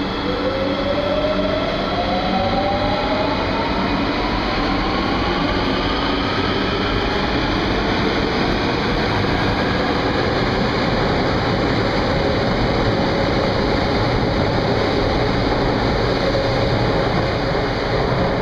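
Marmaray underground commuter train pulling out of the station. Its electric drive gives a whine that rises steadily in pitch over the first several seconds as the train picks up speed, over a loud, steady rush of the cars passing along the platform.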